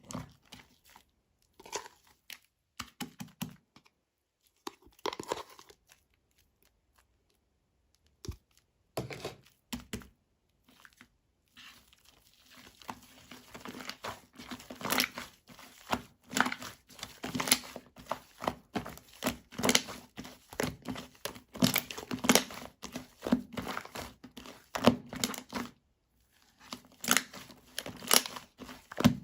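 Crinkling and tearing handling noise: a few scattered crackles and clicks, then dense, fast crinkling from about twelve seconds in, pausing briefly and resuming near the end.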